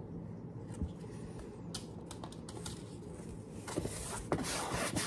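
Paint bottle and brush handled on a work table: scattered light clicks and knocks, then a denser brushing and rubbing sound late on, as a wide brush is worked in acrylic paint.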